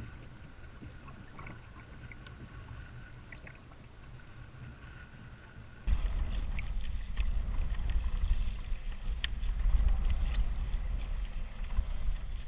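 Wind buffeting the microphone and small waves lapping against a kayak's hull, with scattered light clicks and splashes. The wind rumble becomes much louder about six seconds in.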